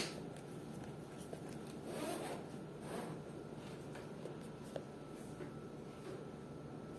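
Faint handling sounds: two soft swishes a second apart, then a small click a little later.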